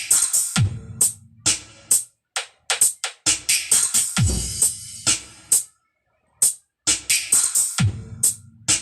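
Electronic DJ remix played loud over a sound system: choppy stop-start drum-machine hits with crisp cymbal sizzle, broken by short silences, and three deep bass booms that drop in pitch.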